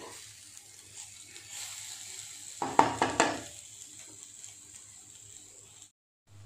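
Stuffed okra sizzling in oil in a nonstick kadai, with a steady high hiss. About three seconds in, a wooden spatula scrapes and knocks against the pan several times, the loudest sounds.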